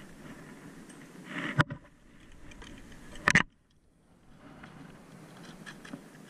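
Two sharp knocks about a second and a half apart, each with a short clatter before it, over faint background noise.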